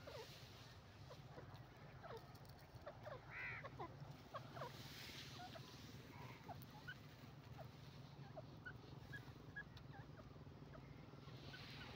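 Faint, scattered short chirping calls of grey francolins, with one louder harsh call about three and a half seconds in.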